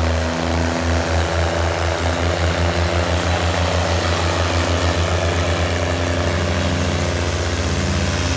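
Tractor diesel engine running hard, its low pulsing beat speeding up steadily as the engine picks up revs.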